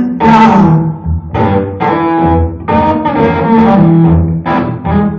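Live amplified guitar playing a slow blues riff: a run of low, ringing notes, each picked with a strong attack.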